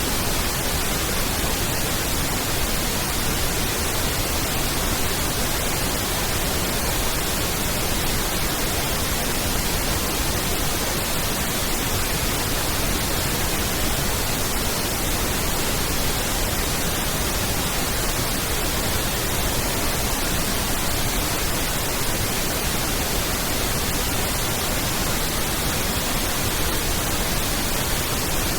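Pink noise test signal: a steady, even hiss spread across all frequencies with equal energy per octave, used for aligning and equalising a sound system.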